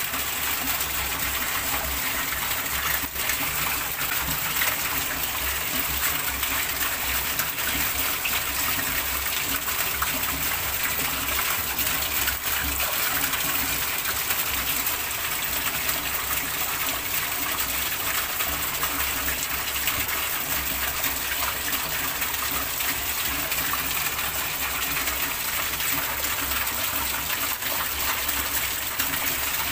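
Heavy rain falling onto the surface of a shallow tiled fish pond, a steady dense hiss of drops splashing on water.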